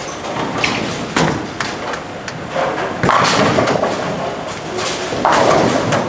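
Bowling alley clatter: a ball knocking, then two crashes of bowling pins being struck and scattered, about three seconds in and again near the end.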